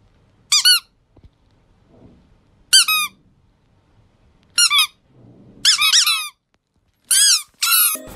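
Plush chick squeaky toy being squeezed, giving about six short, high squeaks spaced one to two seconds apart, each falling in pitch.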